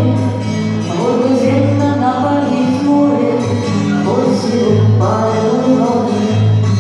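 Background music: a song with singing over guitar and a steady bass line.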